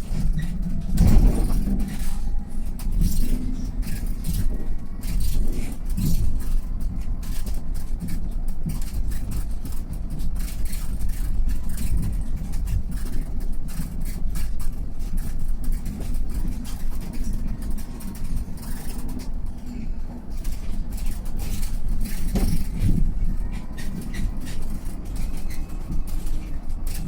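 Mercedes-Benz eCitaro G all-electric articulated bus driving, with a steady low rumble of running gear and road and frequent short rattles and knocks throughout.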